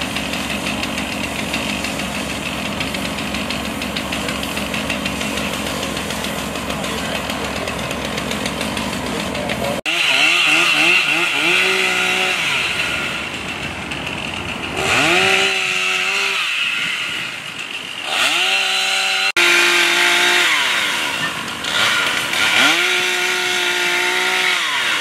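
A steady mechanical din for about the first ten seconds. Then, after an abrupt cut, a chainsaw is revved up, held at speed and let back down about five times.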